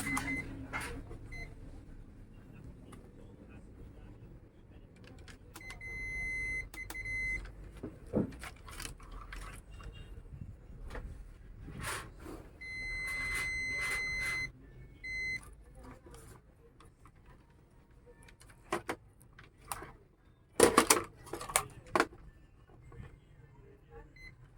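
Digital multimeter continuity buzzer beeping in short and longer beeps as a circuit line is tested, amid scattered clicks and knocks, a loud cluster of them near the end.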